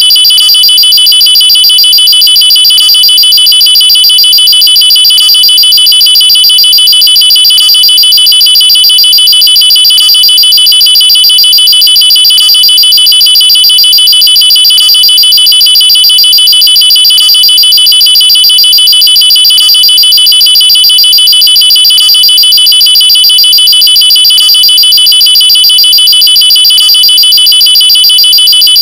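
Electronic alarm sounding continuously: a loud, high-pitched, rapidly pulsing tone held at one steady pitch, without a siren's rise and fall.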